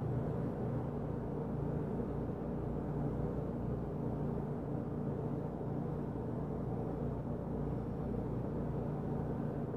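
Steady low mechanical drone with several held tones in the bass, even in level throughout; no separate thumps or footfalls stand out.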